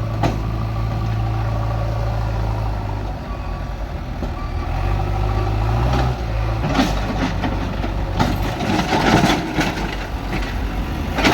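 JCB 3DX backhoe loader's diesel engine running steadily, dipping and then rising in pitch around the middle. From about seven seconds in, a series of metal clanks and rattles sounds over it.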